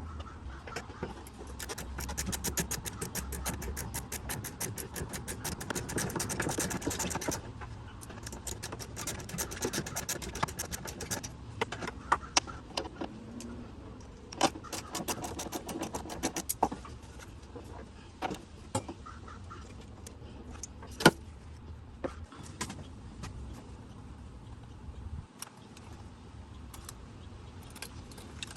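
Hand-tool work on an engine: runs of rapid ratchet clicking lasting several seconds, then scattered single metallic clicks and knocks.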